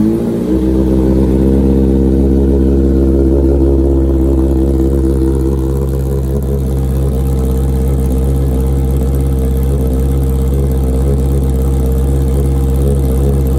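Honda CB650R's inline-four engine idling steadily just after a cold start, running loud through an aftermarket SC-Project open exhaust canister; the idle settles slightly lower about half a second in.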